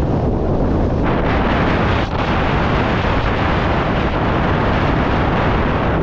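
Strong wind buffeting the microphone: a loud, steady low rumble, with a brighter hiss that strengthens about a second in.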